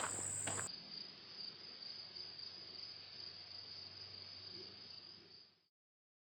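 Footsteps on the trail for the first moment under a steady high insect drone. After an abrupt change a different steady, high-pitched insect chorus continues alone, then cuts off suddenly near the end.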